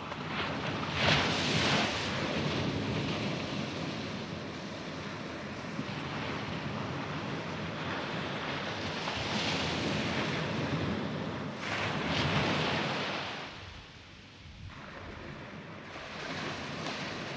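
Sea surf washing onto the shore, with wind: a steady rush that swells and fades every few seconds, loudest about a second in and again near the end of the second third.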